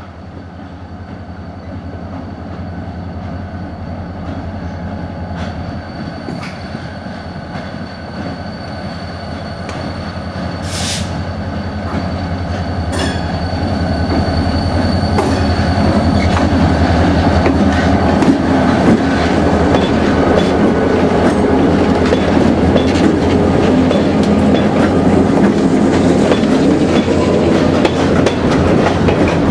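A diesel freight train led by Vermont Railway GP40-2 locomotive 308 approaches and passes, its engine drone growing steadily louder. In the second half come the rattle and clicking of freight-car wheels over the rail as the cars roll by.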